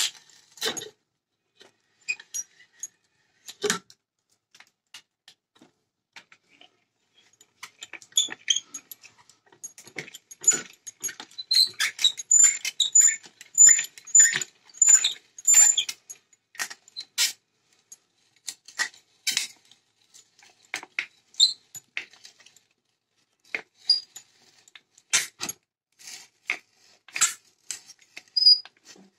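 Antique auger bit in a hand brace boring into a wooden block: irregular crackles and clicks as the bit cuts, busiest from about ten to seventeen seconds in, with a run of short high squeaks in the middle.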